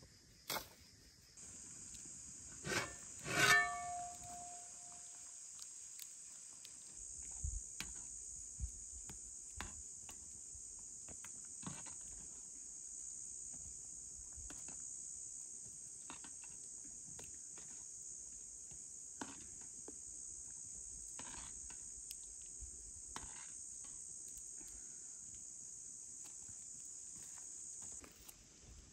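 Insects chirring steadily and high-pitched, starting about a second and a half in and stopping just before the end. Light clicks and knocks are scattered through it, with a louder ringing clink about three and a half seconds in.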